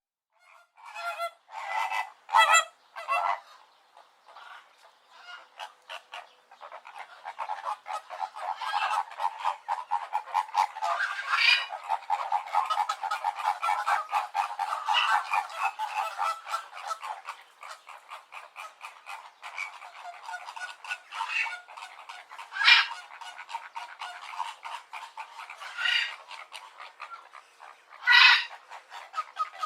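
Flamingo flock calling: a dense, goose-like honking chatter of many birds, with a few louder single honks standing out, thickest through the middle and thinning toward the end.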